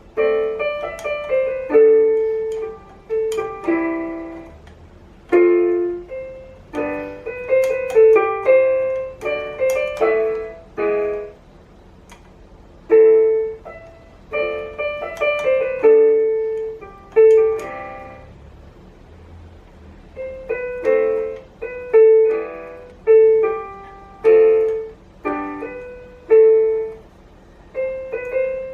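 A RiZKiZ ys-a14948 electronic keyboard played with a piano sound: a slow melody over left-hand chords, in phrases broken by short pauses, as in a beginner's practice.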